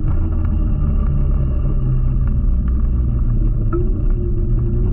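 Electric scooter riding along a paved path: a steady low rumble with a constant hum, and a higher tone that comes in about four seconds in and rises slightly.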